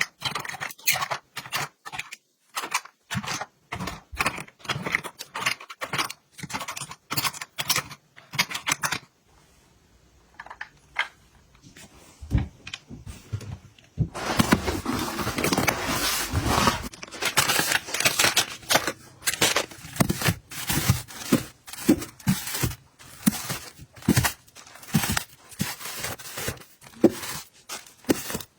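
Small containers and packaging being handled and set down: a run of quick taps, clicks and rustles, with a few seconds of continuous rustling about halfway through.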